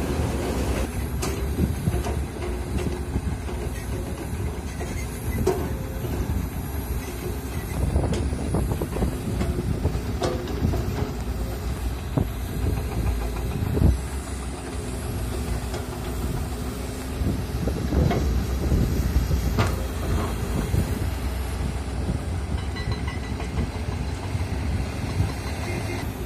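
Komatsu PC200 hydraulic excavator's diesel engine running steadily under load while it digs soil, with scattered short knocks throughout.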